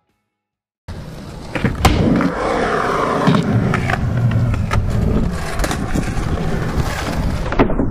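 Skateboard wheels rolling over the ramps of an outdoor skatepark, starting about a second in, with several sharp clacks of the board.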